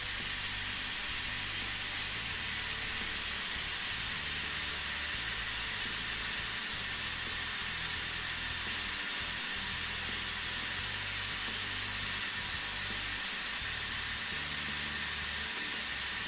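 Dyson Airwrap blowing hot air with a steady rush and a thin high whine from its motor, holding a wrapped section of hair on the barrel during the heating stage before the cool shot.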